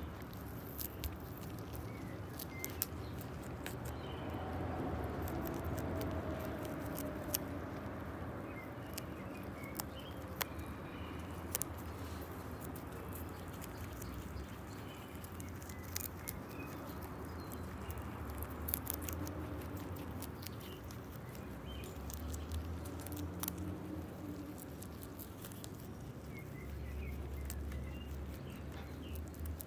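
Lop-eared rabbits chewing fresh dandelion flowers and stems close up: a run of quick, sharp crunching clicks.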